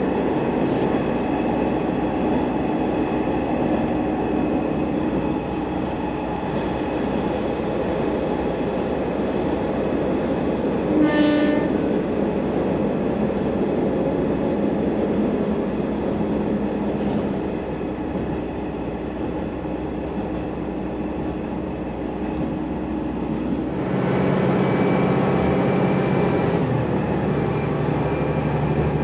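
Diesel railcar running along the line, heard from inside the car: a steady engine drone with wheel and rail noise. About 11 seconds in there is a brief high tone, and at about 24 seconds the engine note changes and grows louder as the throttle setting changes.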